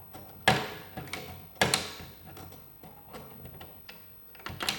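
Sharp clicks and taps of small metal and plastic parts as the laser's guide rods are pulled out of a PlayStation 2 disc drive. Three louder clicks come about half a second in, about a second and a half in and near the end, with lighter ticks between.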